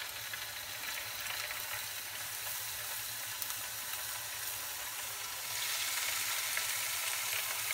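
Saltimbocca sizzling as they fry in hot oil in a nonstick pan. The sizzle gets louder about five and a half seconds in, as a second piece is laid into the oil.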